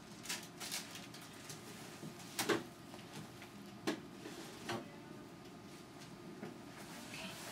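Quiet steady room background with about five short clicks and knocks of things being handled, the loudest about two and a half seconds in.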